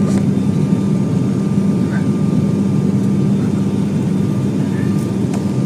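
Steady cabin drone of an ATR 42's twin turboprop engines and propellers during the climb after takeoff, heard inside the cabin, with a strong low hum under it.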